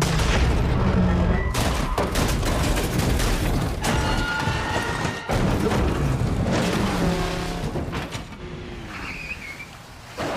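Car-chase film sound: engines running hard, then repeated heavy crash impacts and crunching metal as one car rams another and it rolls over. The noise dies down near the end.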